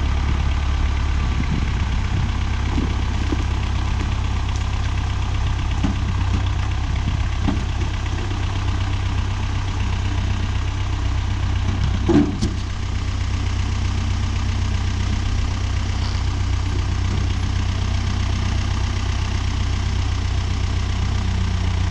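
Renault 651 tractor's diesel engine running steadily, with one short knock about halfway through.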